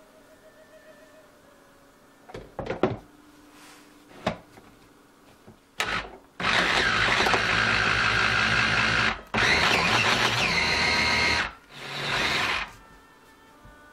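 Electric mini food chopper: a few hard plastic knocks as the motor unit is set on the bowl, then the motor and blade whirring as they chop raw beef chunks, in two long runs of about three and two seconds with a brief stop between, and a short weaker pulse near the end.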